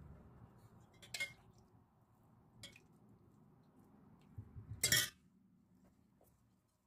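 Metal spoon clinking against a stainless steel pot and a glass baking dish while syrup is ladled out: a few light clinks, the loudest about five seconds in. Before the clinks there is soft handling as a crepe is pressed into the dish.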